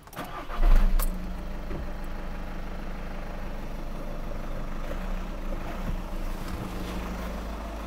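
VW Golf 2.0 TDI four-cylinder diesel engine starting with a brief loud surge about half a second in, then idling steadily with a rattly diesel clatter, its engine cover off. It is being run to circulate freshly filled engine oil.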